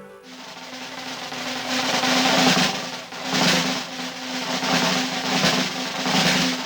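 Soundtrack snare-drum roll, a rapid rattle that swells and dips several times over a steady low note.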